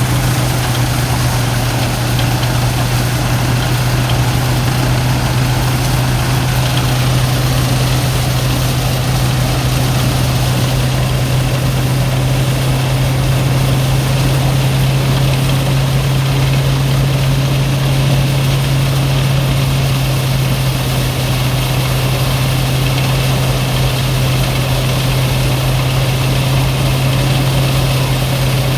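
Rice threshing machine running steadily: an even, loud engine hum with dense mechanical noise over it. It is the machine the owner says sounds like it is breaking down.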